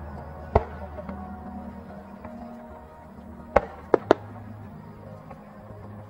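Aerial firework shells bursting, with sharp bangs: one about half a second in, then three in quick succession around three and a half to four seconds in. Sustained low music plays underneath.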